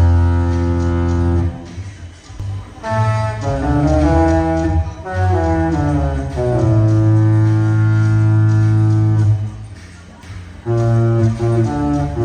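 Disney cruise ship's melody horn playing a tune in long, held multi-note chords, the notes changing every second or two. It pauses briefly about two seconds in and again near the end.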